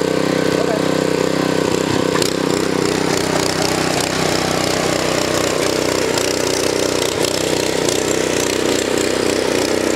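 An Earthquake Victory rear-tine tiller's small gas engine running at full throttle under load as the tines dig into and churn the garden soil. The sound is steady, and its note roughens once the tines bite.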